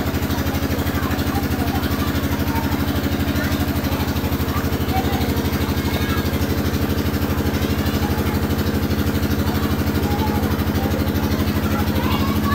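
A motor or engine running steadily with a fast, even pulse and a constant hum, with faint voices over it.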